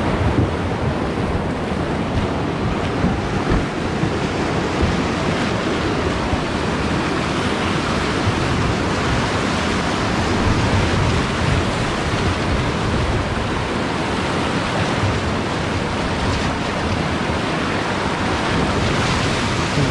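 Whitewater rapids rushing and splashing steadily around the bow of an inflatable raft running through them.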